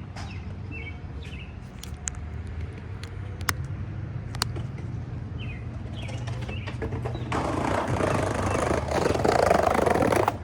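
Skateboard wheels rolling on pavement, getting louder over the last three seconds as the board comes closer. Birds chirp in the first half, with a couple of sharp clicks.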